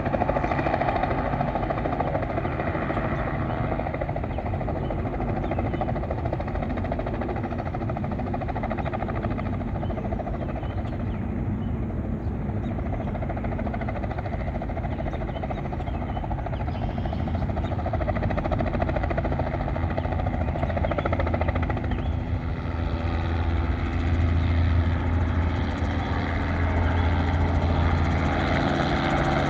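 Helicopter running, its rotor and engine making a steady beating drone. The sound gets louder in the last ten seconds or so.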